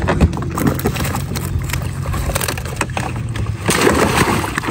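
Knocks and bumps on a small boat as a net keep bag full of fish is handled, then a splash about three and a half seconds in as the bag is lowered into the water.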